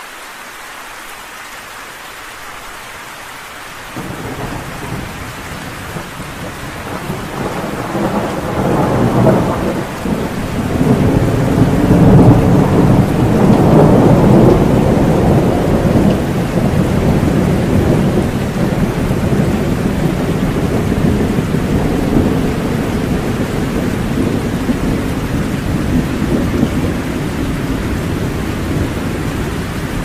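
Steady heavy rain with rolling thunder: a deep rumble comes in a few seconds in, swells to its loudest about halfway through, then eases into a lower rumble under the rain.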